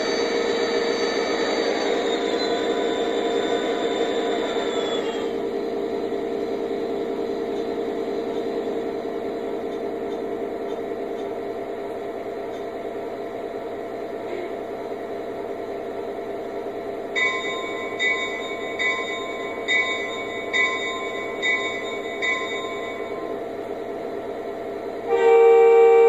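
O-scale model diesel locomotive's onboard sound system playing diesel prime-mover sound that winds down over the first few seconds and settles to a steady idle. Later about seven evenly spaced bell strokes ring, and near the end the horn sounds loudly.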